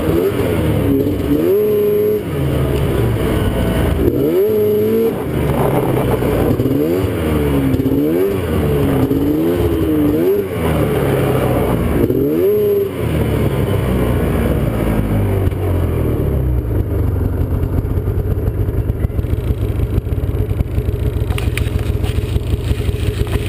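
Arctic Cat snowmobile engine revving up and down over and over while riding, then dropping to a steady low idle about 13 seconds in.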